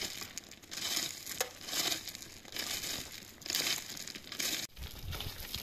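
A long-handled digging tool striking and scraping into stony, gravelly soil, with loose stones crunching. The crunches come in short scrapes about once a second.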